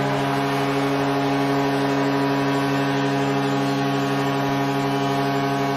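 Hockey arena goal horn sounding one long, steady, low chord, signalling a home-team goal.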